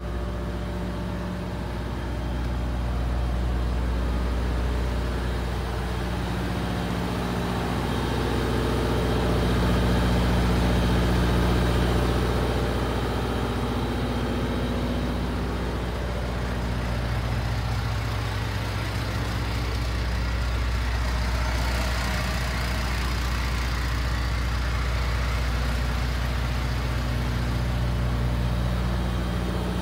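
Semi-truck diesel engine idling, a steady low hum.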